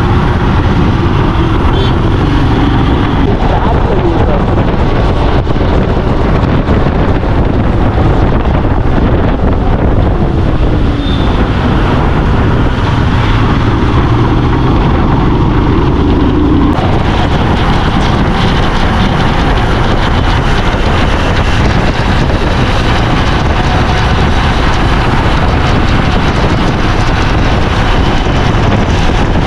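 Royal Enfield 450 single-cylinder motorcycle engine revving up and down while riding, under heavy wind noise on the helmet camera's microphone. The sound changes abruptly a little past halfway.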